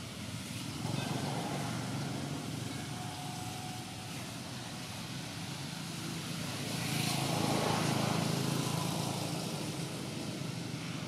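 Distant motor traffic: a steady low rumble that swells louder and hissier as a vehicle passes about seven to eight seconds in.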